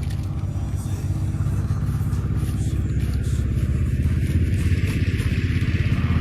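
A vehicle running on the road: a steady low rumble with fast, even pulsing that grows a little louder, with a hiss that builds about halfway through.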